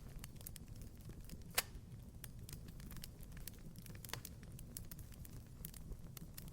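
Wood fire crackling in a fireplace: scattered small pops over a low rumble, with a sharp, loud pop about a second and a half in and another a little after four seconds.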